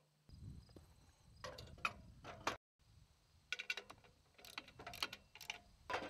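Faint clicks and knocks of the portable chainsaw mill's steel bracket and T-knob clamp being handled and fitted to an aluminium ladder rail, over a low rumble.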